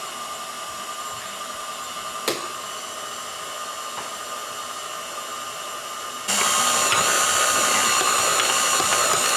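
KitchenAid tilt-head stand mixer running, its motor giving a steady whine as the beater churns butter, flour and cream into crumbs in a stainless-steel bowl that is held by hand rather than locked in place. A single click comes a couple of seconds in, and the whine is suddenly louder from about six seconds in.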